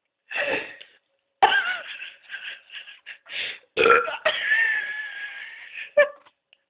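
A woman burping: a short burp, then a run of short choppy burps from about a second and a half in, then one long drawn-out burp lasting about two seconds, and a final short burp near the end.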